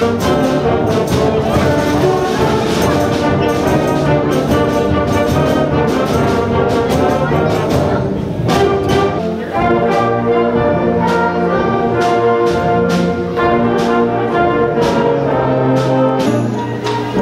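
A live school concert band playing, with the brass, trombones among them, to the fore and sharp percussion strikes through the music.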